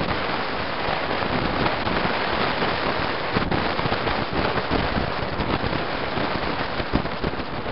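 Wind buffeting and crackling on the microphone of a camera in a moving vehicle, with road noise underneath; a steady, dense crackle and no siren.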